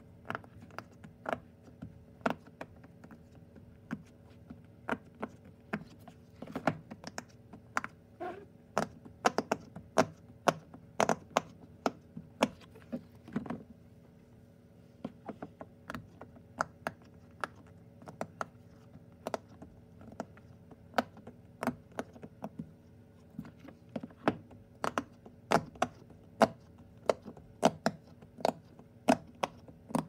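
Silicone push-pop bubble fidget toys being pressed by fingers: a long string of sharp little pops, irregular, a few a second, with a short pause about halfway through.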